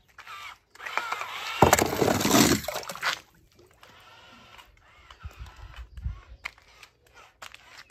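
A toy car dropping into a pool of water: a splash and sloshing, loudest for about a second and a half from just under two seconds in, then fainter water movement.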